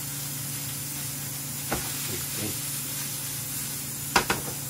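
Meat sizzling in a frying pan: a steady frying hiss over a low steady hum. A sharp knock sounds about a second and a half in, and two louder knocks come in quick succession near the end.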